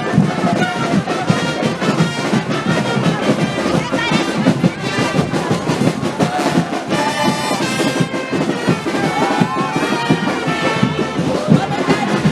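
Charanga brass band playing carnival music: trumpets and trombones over continuous percussion.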